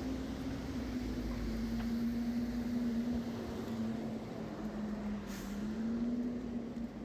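Steady rain falling, with a low droning hum under it whose pitch drifts slightly up and down, and a brief hiss about five seconds in.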